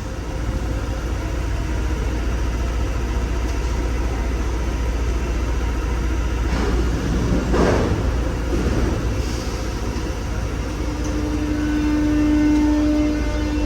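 Paris Métro MF 77 steel-wheeled train running at the platform: a steady low rumble with a brief rushing swell about halfway through. A steady held tone comes in about three-quarters of the way through.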